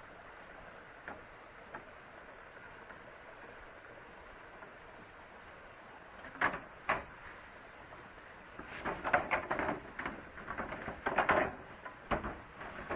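Two sharp knocks about six and a half seconds in, then a run of clattering knocks and scrapes lasting about three seconds, and a few more near the end, over a steady hiss.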